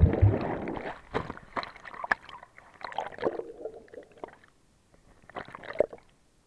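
Seawater splashing and bubbling around a camera as it plunges under the surface: a loud splash at the start, then churning, gurgling bubbles that fade, with a few shorter bursts of bubbles around one to four seconds in and again near the end, heard from under the water.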